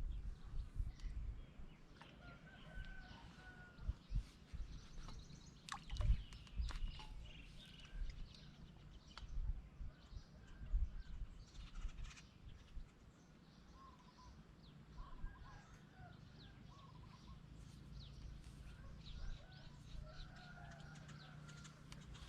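Birds calling in short, scattered calls, probably domestic fowl, over a low rumble of wind or handling noise, with a few sharp clicks.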